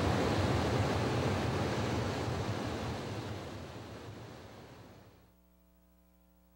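A steady rushing noise, like surf, fading out gradually over about five seconds into near silence with a faint hum.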